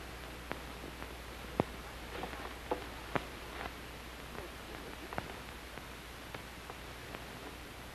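Steady hiss and low hum of an old film soundtrack, with a few faint sharp clicks scattered through it.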